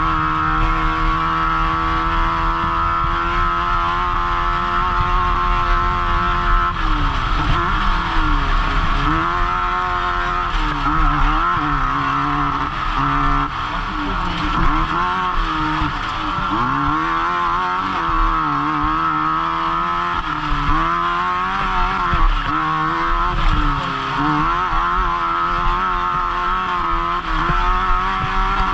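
Off-road race vehicle's engine running hard at high revs, held steady for about the first seven seconds. After that the revs drop and climb back again and again, every second or two.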